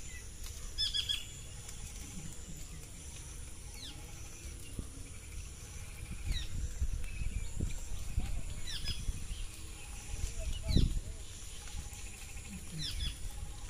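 Outdoor rural ambience over flooded paddy fields: wind rumbling on the microphone, a steady high buzz of insects, and short falling bird chirps every couple of seconds, one louder about eleven seconds in.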